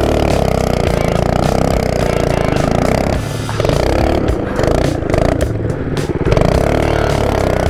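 Baja mini bike's Predator 212cc single-cylinder four-stroke engine running hard as the bike spins donuts in snow. The engine note eases off briefly about three seconds in and again around five to six seconds.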